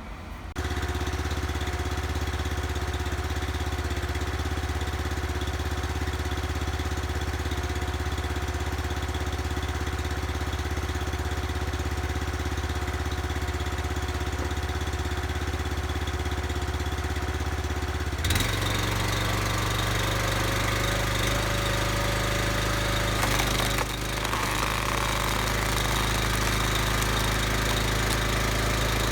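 The North Star 37-ton wood splitter's 390 gas engine running steadily. Its note changes abruptly about eighteen seconds in, then it runs on steadily.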